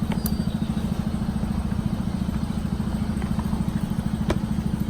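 A small engine idling steadily with a fast, even low pulse. A few light clicks of parts being handled sound over it.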